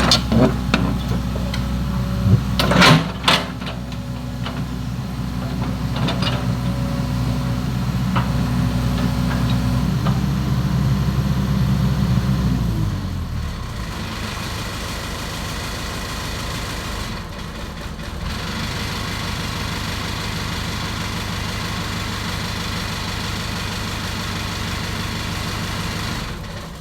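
Excavator's diesel engine running at raised revs, then dropping to a lower steady idle about halfway through. A few sharp knocks sound a couple of seconds in.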